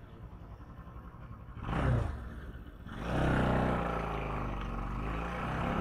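Bajaj Pulsar NS200's single-cylinder engine running low, then opening up about three seconds in and holding a steady higher note as the bike moves off. A short burst of noise comes about two seconds in.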